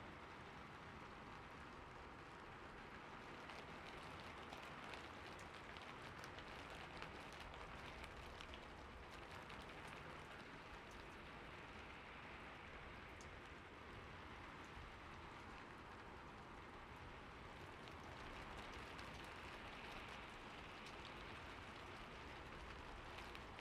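Faint, steady splashing water: an even hiss with many fine drips throughout.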